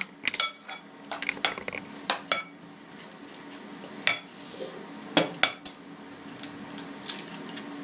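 Metal spoon clinking against a mixing bowl while stirring grated potato and onion: irregular sharp clinks, several in the first couple of seconds and a few more around four and five seconds in. A low steady hum underneath.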